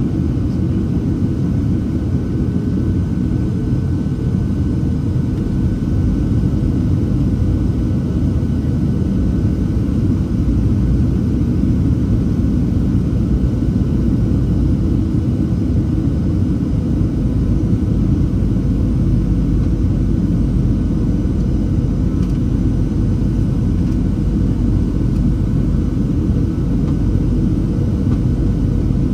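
Steady cabin noise aboard a Boeing 737-700 in flight: a low, even rumble of its CFM56 jet engines and rushing air, with faint steady tones riding above it.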